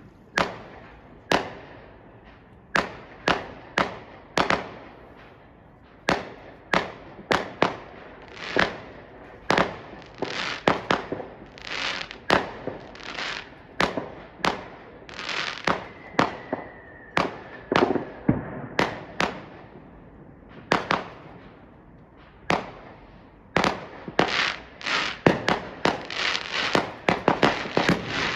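A fireworks display: sharp bangs go off one after another, every second or so, many trailing into crackle. Near the end they come thick and overlapping in a barrage. A faint whistle sliding slightly down in pitch runs for a few seconds about halfway through.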